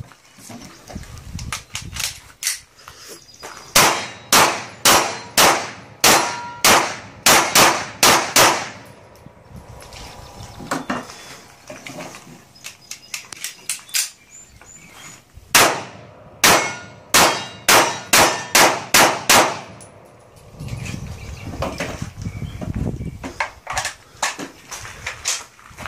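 Two rapid strings of gunshots, about ten shots each at roughly two a second, with a metallic clang and ring of steel plate targets being hit.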